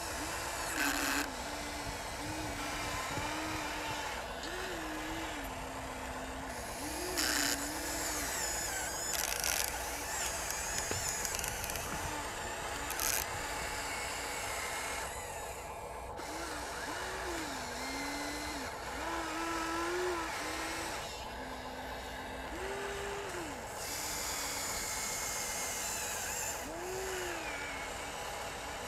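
Electric motors of a Huina RC excavator whining as it digs and swings, the pitch rising and falling with each move of the boom, arm and bucket. A few short crunches of the bucket in dirt and rock.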